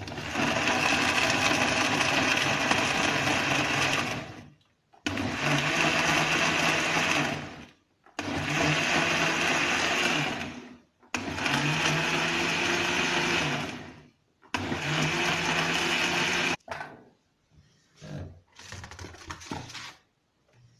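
Electric blender running in five bursts of a few seconds each, switched off briefly between them, grinding oranges and lemons in water for juice. A few softer knocks and rattles follow near the end.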